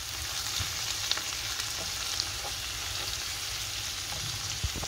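Beef liver and onions frying in a non-stick pan with a steady sizzle, a little water just added to the hot oil, while a wooden spoon stirs the pieces with a few faint scrapes and taps.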